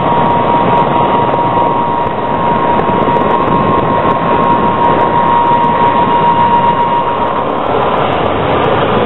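Aircraft engines running on an airfield apron: a loud, steady rushing noise with a high, steady whine that fades out about seven and a half seconds in.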